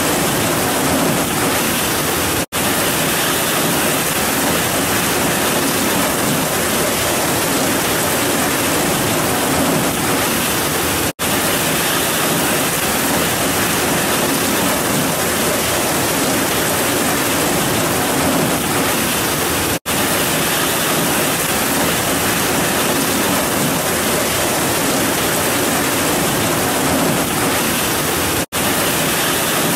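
Heavy rain pouring steadily on grass and trees, an even, dense hiss. The sound cuts out for a split second four times, about every nine seconds.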